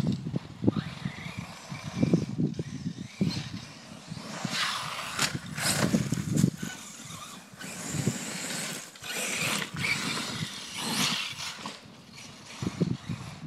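Radio-controlled HPI Vorza truck on Badlands 3.2 tires driving hard over loose dirt, its motor and spinning tires rising and falling in repeated bursts.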